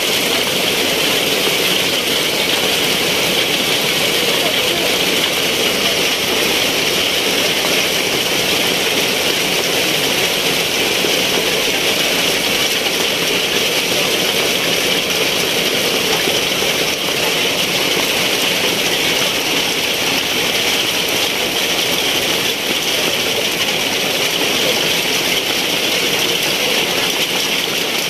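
Heavy rain falling steadily onto wet pavement and puddles, a loud, even hiss with no let-up.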